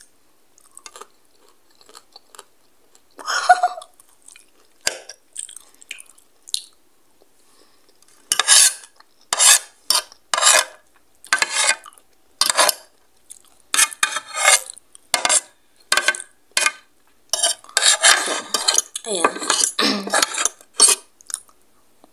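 Metal spoon and fork scraping and clinking against a plate as food is scooped up: a few scattered strokes at first, then a quick run of scrapes, roughly two a second, through the second half.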